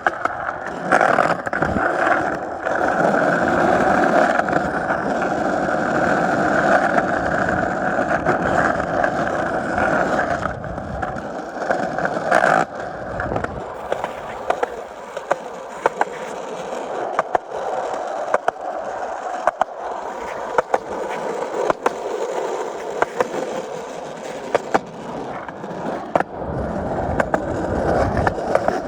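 Skateboard wheels rolling over pavement, a continuous gritty rumble that is louder for about the first twelve seconds and then drops to a quieter roll, with sharp clicks about once a second.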